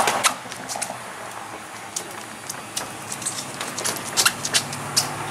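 Boxing gloves slapping against gloves and forearms as punches are thrown and parried: a run of sharp, irregular smacks, with a few louder ones near the end.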